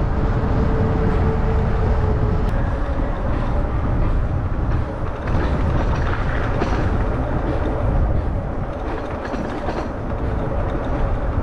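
Wind rushing over the microphone while riding a bicycle through city streets: a loud, steady low rumble with a faint hum for the first couple of seconds.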